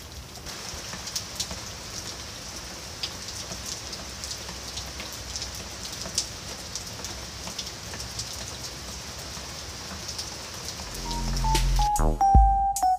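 Steady rain falling, an even hiss with scattered sharp drop ticks. About eleven seconds in, electronic music with a bass line starts and becomes the loudest sound.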